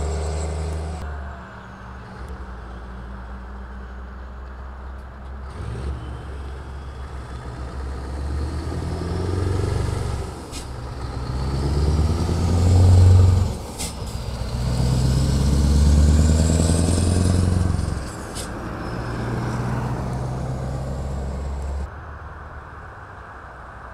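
Heavy Scania trucks driving past one after another, their diesel engines swelling as each truck approaches and passes, then fading away.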